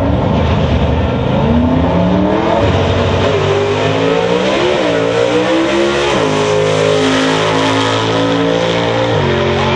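Drag car's engine at full throttle, accelerating from the starting line down the strip. The revs climb and then drop sharply at each upshift, about two and a half, five and six seconds in, then hold a steady high drone until another drop near the end.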